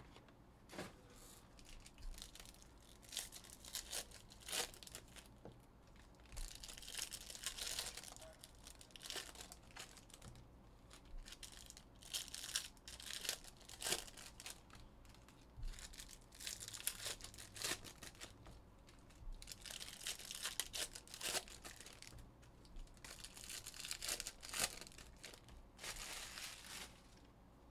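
Foil trading-card packs being torn open and their wrappers crinkled by hand, in repeated bursts of rustling every few seconds.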